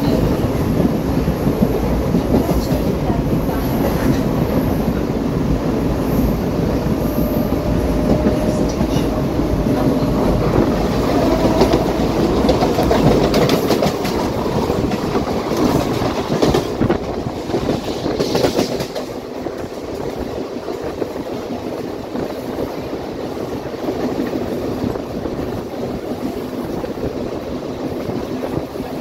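Mumbai suburban electric local train running, heard from on board: a steady rumble with wheels clattering over the rail joints. Another local train rushes past close alongside in the middle, and after about two-thirds of the way through the sound settles to a quieter running rumble.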